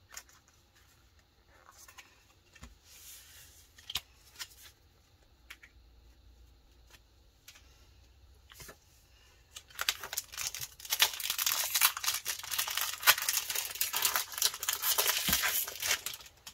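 A few light taps, then about ten seconds in a foil Pokémon booster pack wrapper crinkles and crackles for several seconds as it is opened.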